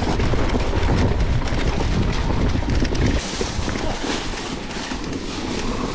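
Wind buffeting the camera microphone over a mountain bike rolling and rattling down a trail covered in dry leaves, with many small clicks and knocks from the bike. The heavy wind rumble eases about three seconds in.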